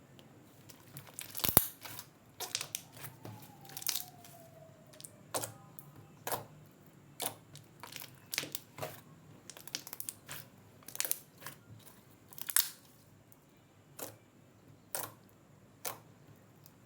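Thick glossy slime being pressed and pulled by hand, giving a string of sharp little pops and clicks as air pockets burst, about one a second.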